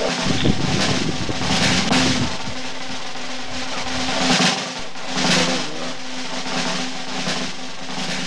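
Background music with drums.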